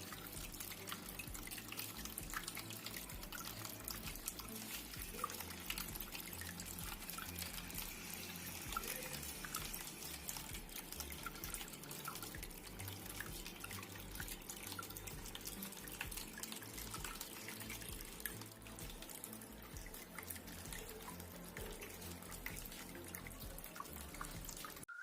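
Water trickling and dripping steadily down a small homemade cement tabletop waterfall fountain, with many small drip ticks over a continuous trickle.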